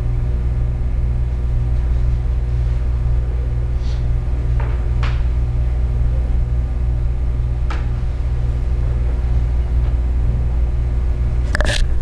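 A loud, steady low hum, with a few faint clicks in the middle and a louder noise just before the end.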